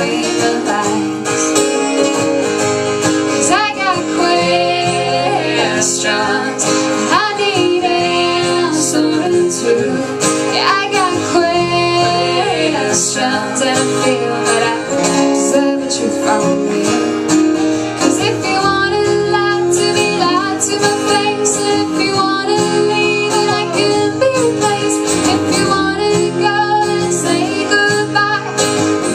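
Live country-pop song: a woman singing over guitar accompaniment, the sung line running on over steady chords.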